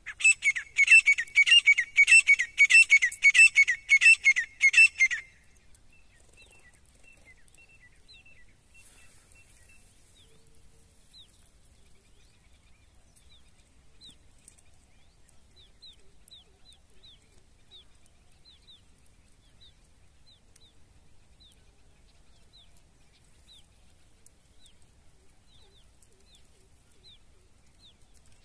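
Francolin (teetar) calling: a loud run of about a dozen shrill notes, evenly repeated for about five seconds, then stopping. After it only faint, scattered short chirps of small birds are heard.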